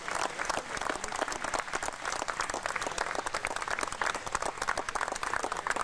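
Crowd applauding: many hands clapping at a steady level.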